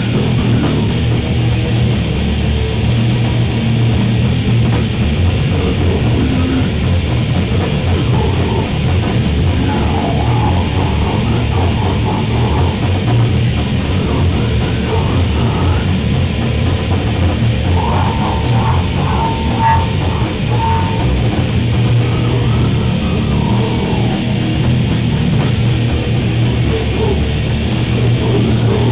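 Heavy metal band playing live and loud: distorted electric guitars over a drum kit, with short held lead-guitar notes twice along the way.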